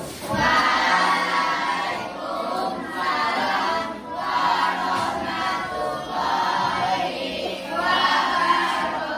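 A class of students chanting in unison in long, drawn-out phrases, the way a class recites a greeting together.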